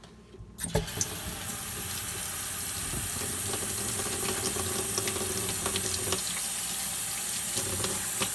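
Kitchen faucet turned on about half a second in, water then running steadily into a stainless steel sink, with small splashes as hands are washed under the stream.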